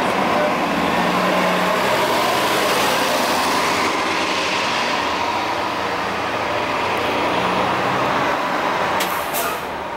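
City transit buses at the platform: a 40-foot New Flyer bus pulls away with its engine running loud and steady while an articulated bus rolls in. A brief burst of air hiss comes near the end.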